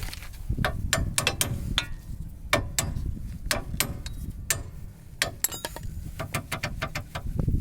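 Worn front ball joint of a Chevrolet Aveo being rocked back and forth by hand to work it out of its seat, giving an irregular run of metallic clicks and knocks, several a second. The joint is worn, with play even in the vertical direction.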